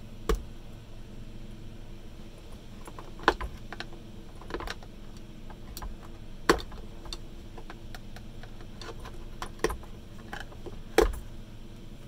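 Metal tool tapping, scraping and prying at a Henry vacuum cleaner's motor as it is stripped for scrap: irregular sharp clicks a second or more apart, over a steady low hum.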